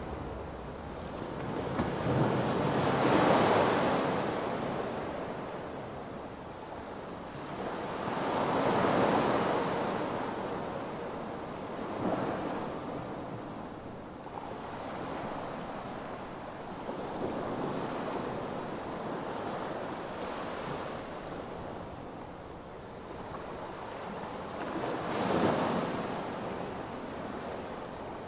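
Sea waves breaking and washing on the shore, each swell rising and falling away every few seconds.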